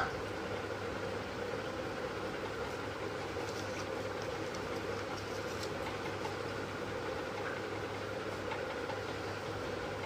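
A steady mechanical hum, with faint paper rustles and light ticks as folded paper pieces are handled and pressed together.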